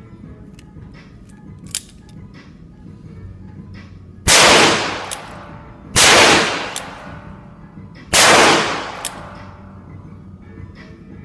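Three shots from a Taurus Model 82 .38 Special revolver, roughly two seconds apart, each followed by a short fading echo.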